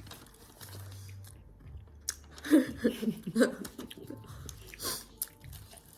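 Biting into and chewing crusty salt bread close to the microphone: a sharp crunch about two seconds in, then a run of crisp crackling chews over the next few seconds, with a short muffled vocal sound from a full mouth in the middle.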